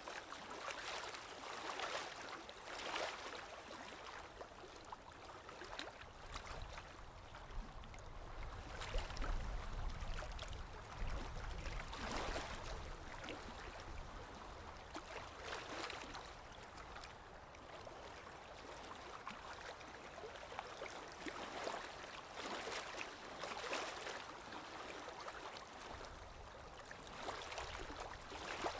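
Running water trickling and gurgling, with uneven surges, and a low rumble underneath for several seconds in the middle.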